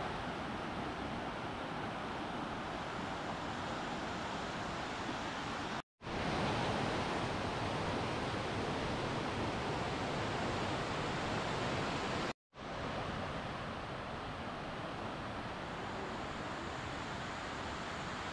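Steady rush of falling water from the Ginga and Ryusei waterfalls, in three stretches joined by two abrupt cuts, the middle one a little louder.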